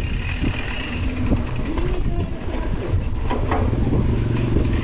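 Wind rumbling on a chest-mounted camera's microphone as a mountain bike rolls along, with faint voices in the background and a short run of light clicks about halfway through.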